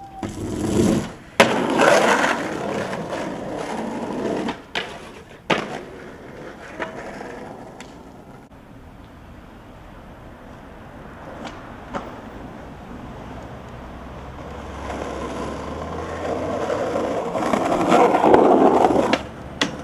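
Skateboard wheels rolling on pavement, swelling louder at the start and again toward the end. Several sharp clacks of the board hitting the ground cut through it: one early, two around five seconds in, and one just before the end.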